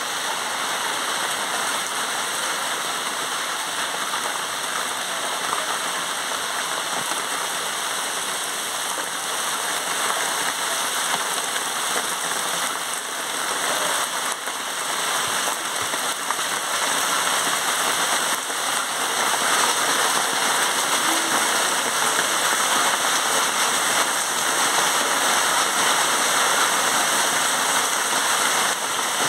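Heavy rain pouring steadily onto open water, a dense even hiss that grows a little louder about two-thirds of the way through.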